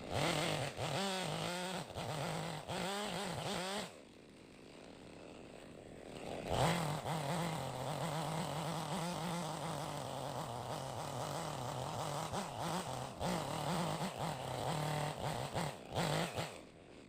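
Two-stroke chainsaw running under load as it cuts a log, its engine note wavering. It drops back to a quieter idle about four seconds in and is revved up again about two and a half seconds later.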